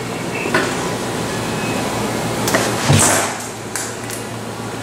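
A steady mechanical hum with several sharp clicks and knocks over it. The loudest is a thump about three seconds in, followed by a brief hiss.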